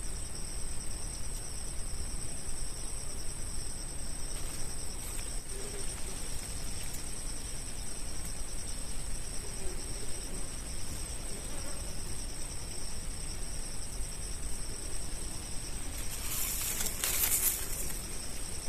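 Steady high-pitched insect drone, two constant tones held throughout. Near the end a short burst of noise lasts about two seconds.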